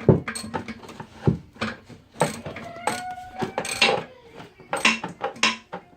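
Metal wrench working a long threaded toilet tank-to-bowl bolt loose: irregular clicks, clinks and knocks of the tool against the bolt and fitting, with a brief metallic ring near the middle.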